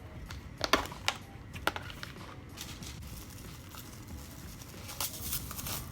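Takeout food and plastic plates or utensils being handled, making sharp clicks and crinkling. There are a few clicks within the first two seconds and a cluster near the end.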